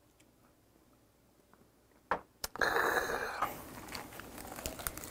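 About two seconds of near silence, then a couple of sharp clicks and a short rustle, followed by close-up crunchy chewing of a leafy lettuce wrap (ssam).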